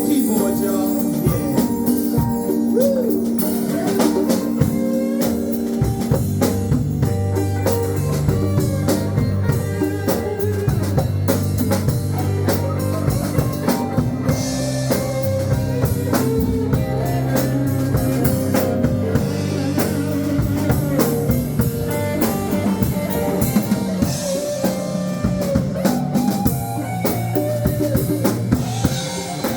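Blues music with a drum kit keeping a steady beat under sustained guitar notes.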